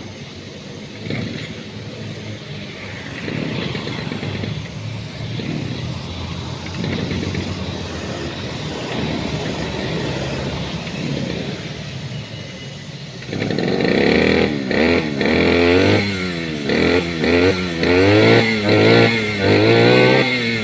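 An engine idling, then from about two-thirds of the way in revved up and down repeatedly, its pitch rising and falling with each blip of the throttle.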